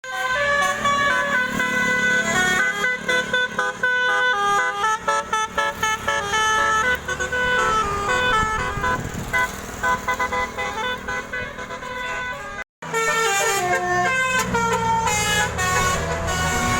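Basuri telolet horn, a multi-tone vehicle horn, playing a quick melody of short stepped notes, often several at once. It breaks off for a moment about thirteen seconds in and resumes with mostly falling notes over a low engine hum.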